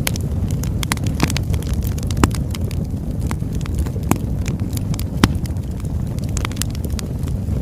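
Burning wood logs crackling: a steady low rumble of the fire with frequent irregular snaps and pops, a few sharper pops standing out.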